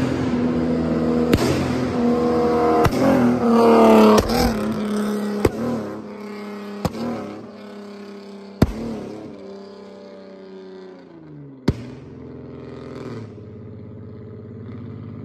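Flame-tuned V6 Dodge Charger accelerating past with its engine note climbing, then pulling away and fading into the distance, the pitch dropping near the end. Sharp exhaust pops crack out every second or two, about seven in all; they are the backfires from the flame tune shooting flames out of both exhaust tips.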